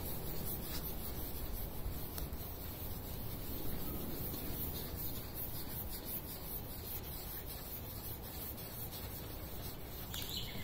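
Lead test swab tip rubbed against a lightly sanded painted steel car body panel, a faint, steady rubbing, during the 30-second rub of a lead paint test.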